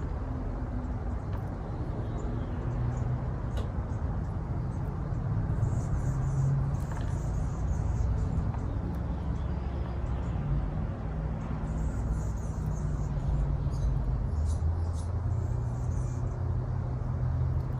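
A steady low motor rumble, like a running engine, drifting slightly up and down in pitch.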